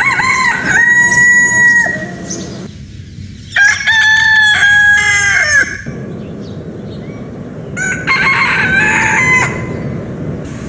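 A rooster crowing cock-a-doodle-doo three times, each crow about two seconds long with a held note that drops off at the end.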